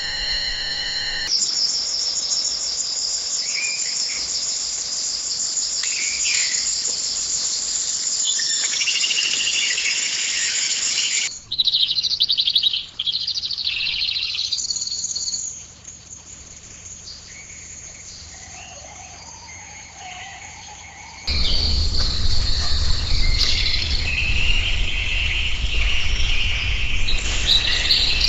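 Rainforest ambience: a dense, high chorus of insects with birds chirping over it, changing in character several times. Partway through it drops to a quieter stretch with lower bird calls. Later it grows loud again with a low rumble underneath.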